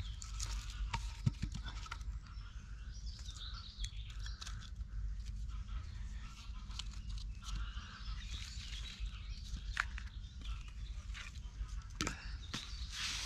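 Woodland birds chirping and singing, with scattered knocks and scrapes as charred logs are picked up and set down in a fire pit by hand.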